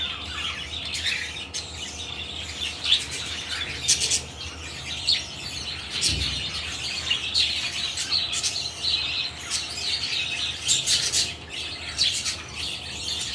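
Caged pet parrots (budgies, cockatiels and lovebirds) chirping, with many short high calls overlapping one another.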